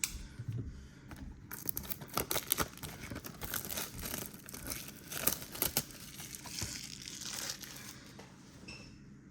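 Plastic shrink wrap crinkling and tearing as it is pulled off a sealed trading-card hobby box, with many irregular crackles.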